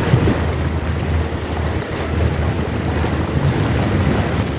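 Wind buffeting the microphone: a steady low rumbling rush of noise.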